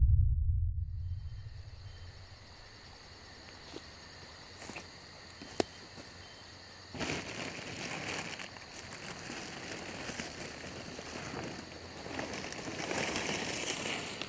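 Woodland insects chirring steadily, with a few small clicks and snaps among the leaves. A deep boom is dying away in the first couple of seconds. From about halfway there is a rustling, louder near the end.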